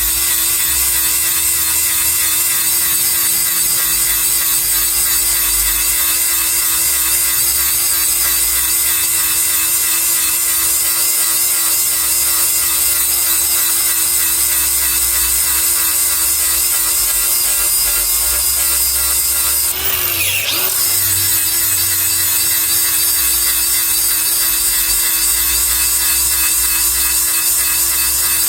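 Power grinder running steadily as it sharpens the steel teeth on a Bandit Beast 4680's mill, a steady whine over a dense hiss of grinding. About twenty seconds in the pitch dips and wobbles briefly, then steadies again.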